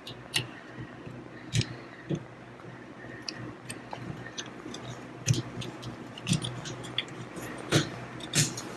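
Irregular clicks and light metal taps of gearcase parts and hand tools being handled, with a few louder knocks among them.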